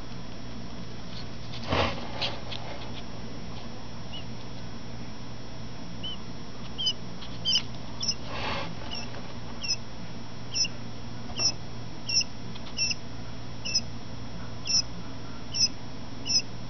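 Newly hatched Coturnix quail chick peeping: short high chirps repeating about once or twice a second, starting about six seconds in. A brief rustle is heard near the start and again about eight seconds in.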